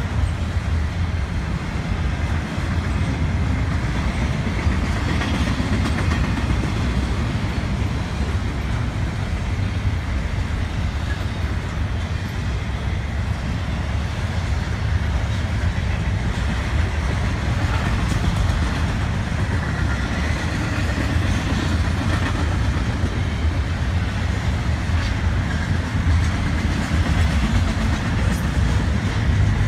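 Double-stack intermodal freight train's well cars rolling past, a steady low rumble of steel wheels on rail that holds even throughout.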